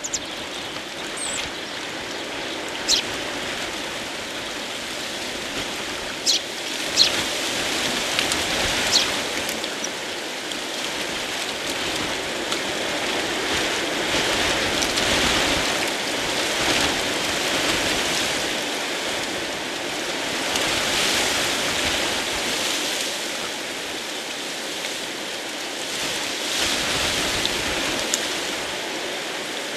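Storm rain and wind, a steady rushing that swells and eases every few seconds. A few short chirps from small birds come in the first nine seconds or so.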